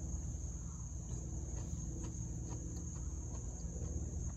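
A steady, high-pitched insect chorus, one continuous trill, with a few faint chewing clicks.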